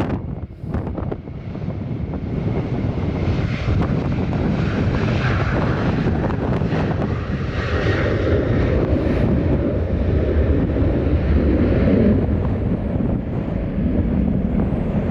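Jet airliner's engines rumbling as it passes, swelling over the first few seconds and loudest about twelve seconds in.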